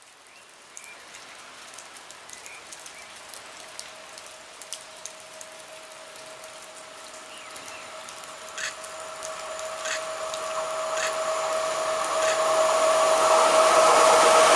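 Rain falling steadily while a PKP EP07 electric locomotive hauling an Intercity passenger train approaches, its steady whine and running noise growing louder as it nears. A few sharp clicks sound in the second half.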